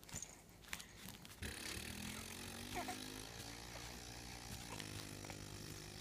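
A low, steady motor hum with several pitched tones starts about a second and a half in; its pitch rises briefly and then holds steady.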